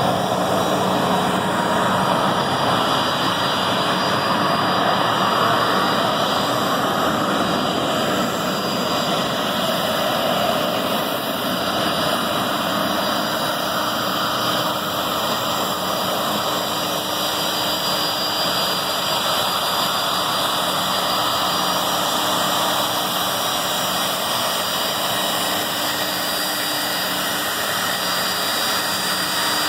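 Jet airliner's turbofan engines running steadily: a constant rush with a thin high whine and a low hum over it.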